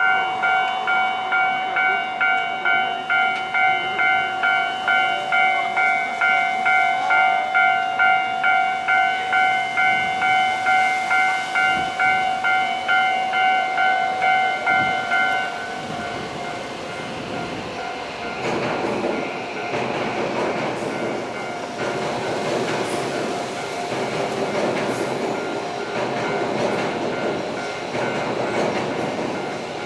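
Japanese level-crossing alarm bell ringing at about two strikes a second, then stopping about halfway through. A train then passes with a rumble, wheel clatter and some high-pitched squeal.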